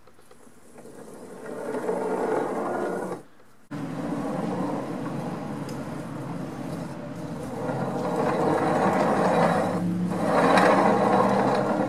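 Steel scraping and rumbling against a steel angle rail, continuous in two stretches with a brief break about three seconds in, then stopping abruptly.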